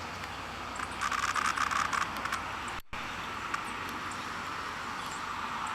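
A cicada held in the hand gives a short burst of rapid clicking buzz, about a second long, starting about a second in. It sounds over the steady distant drone of a cicada chorus.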